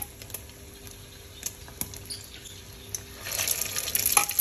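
A few light clinks of a metal spoon in a steel bowl of beaten egg, then, about three seconds in, hot oil sizzling as egg-coated potato bergedel patties fry in a wok, growing louder.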